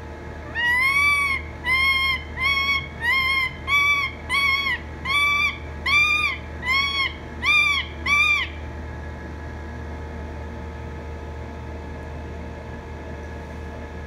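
A parrot calling the same short squawk about eleven times in a quick even series, roughly one and a half calls a second. Each call rises and falls in pitch. The calls stop about two-thirds of the way through, leaving a steady low hum.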